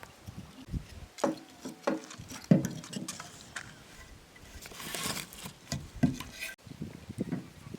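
Irregular light knocks and clatters, a few sharper than the rest, with a brief rustling stretch around the middle.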